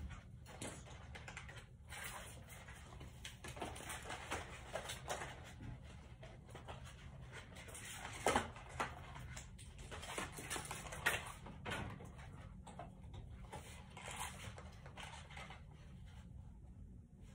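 Plastic branches of an artificial Christmas tree rustling and clicking irregularly as they are handled, with a few louder crackles about eight and eleven seconds in.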